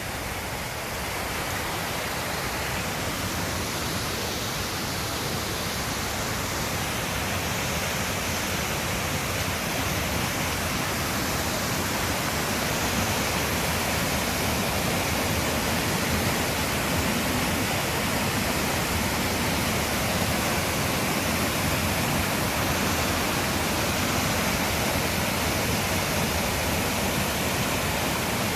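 Sgwd Clun-Gwyn waterfall: a continuous, even rush of falling water, growing a little louder over the first dozen seconds.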